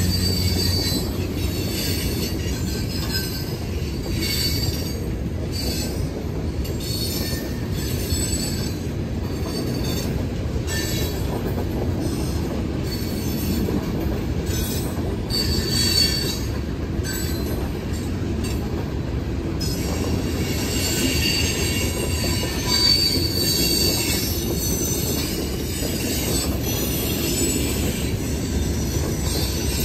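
Freight train cars rolling steadily past: a continuous low rumble of wheels on rail, with high wheel squeals coming and going.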